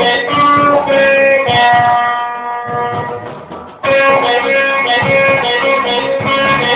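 Guitar playing a melody of ringing plucked notes. The playing fades away about two and a half seconds in and comes back suddenly about a second later.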